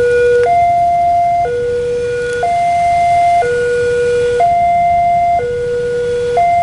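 Indonesian-type electronic level-crossing alarm sounding its two-tone warning, a lower and a higher tone alternating about once a second. The crossing is closed with its red lights lit for an approaching train.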